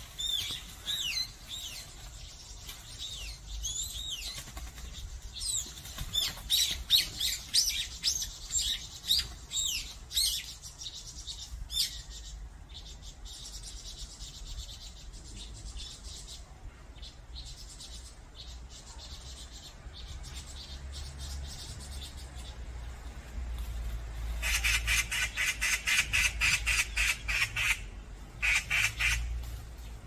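Assorted wild songbirds calling in woodland: many quick, sweeping chirps and whistles through the first dozen seconds, then a fast, pulsing chatter near the end, over a faint steady low hum.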